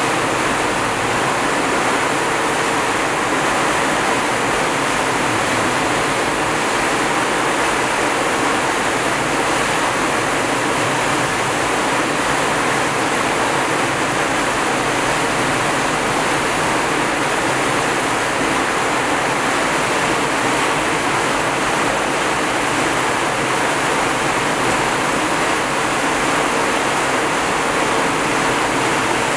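Steady rushing noise of water and wind, even and unchanging throughout.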